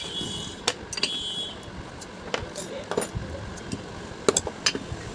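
Scattered sharp metal clinks and taps, the first two ringing briefly: a bearing puller and ceiling-fan shaft parts being handled as the puller is set up to pull off the fan's second ball bearing.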